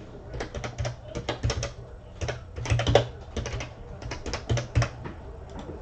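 Typing on a computer keyboard: a quick, irregular run of key clicks, in several bursts.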